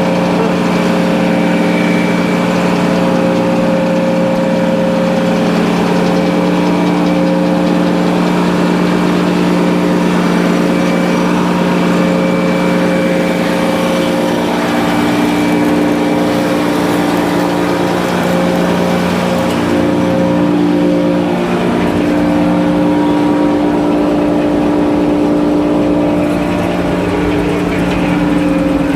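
Sawmill's power engine running steadily at a constant speed, its pitch shifting slightly about two-thirds of the way through.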